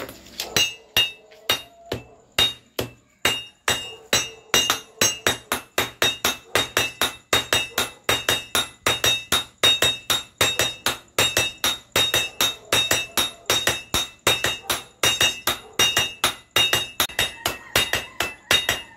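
Hand hammers forging red-hot iron on a steel anvil, a fast steady rhythm of about three blows a second. Each blow rings with a clear metallic note as two strikers work the piece while it is held with tongs.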